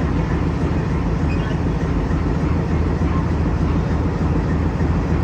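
WDG3A diesel locomotive's ALCO V16 engine running with a steady low hum.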